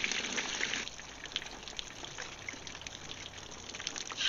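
Water from a garden hose spraying onto a raw bowfin fillet and splashing on the paper beneath it. The spray hisses strongly for about the first second, drops to a lighter trickle and patter, and picks up again near the end.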